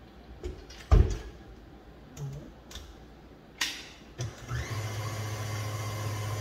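A few knocks of a spatula and utensils against a steel mixing bowl. About four and a half seconds in, a tilt-head stand mixer's motor starts and runs with a steady hum, whisking mascarpone cream and icing sugar.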